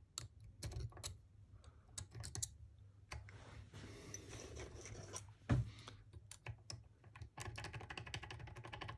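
Small metallic clicks and scraping from a thin pin-removal tool working in the keyway of a drilled Ultion euro lock cylinder, drawing out loose pins and springs. One sharper knock comes about halfway through, and the clicking turns quick and dense near the end.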